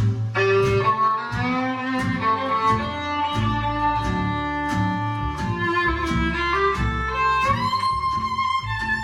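Instrumental break of a recorded ballad played through a tube amplifier: a sustained string melody over a steady plucked accompaniment with a beat about twice a second.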